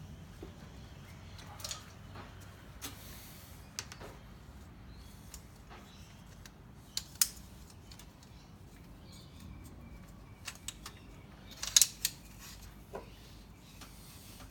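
Scattered light clicks and metallic clinks of tools and parts being handled on a workbench, with sharper clinks about seven seconds in and again near twelve seconds.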